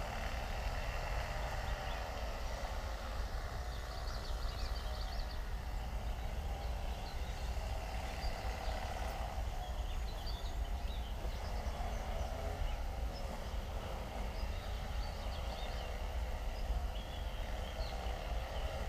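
Steady outdoor ambience by a river: a low rumble with an even haze of running water, and faint short high chirps scattered through.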